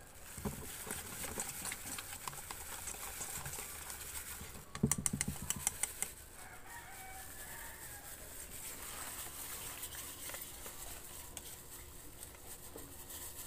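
A whisk clattering rapidly against a steel mixing bowl for about a second, about five seconds in, over a quiet background with chickens clucking faintly.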